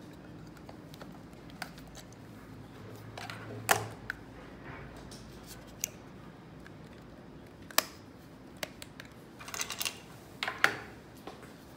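Handling noise from a compact digital camera: a few sharp plastic clicks and taps, spaced seconds apart, as its card slot cover is opened.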